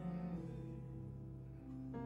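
Soft instrumental music: sustained chords held and changing slowly, a few times.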